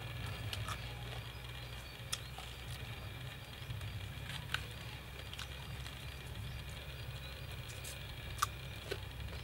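A few sharp, scattered clicks and scrapes of a knife blade against a split young coconut as the soft flesh is scooped out, over a steady low hum.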